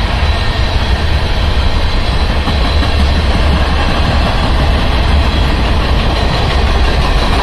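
Cars of a passing mixed freight train, such as tank cars, boxcars and covered hoppers, rolling by on steel wheels over the rails with a steady, heavy rumble.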